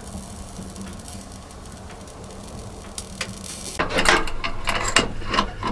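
A knife shaving a piece of wood by hand: a run of irregular scraping strokes that begins a little under four seconds in, over a low steady hum.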